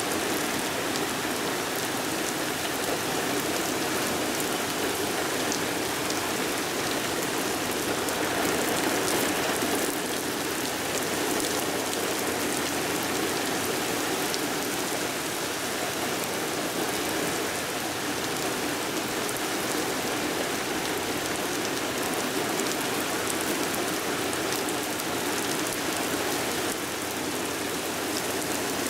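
Steady heavy rain falling and pattering on surfaces, with individual drops ticking through the constant hiss.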